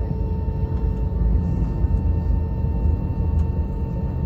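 Steady cabin noise inside an Airbus A320-214 airliner: an even low rumble with a few thin steady humming tones above it, holding level without rising or falling.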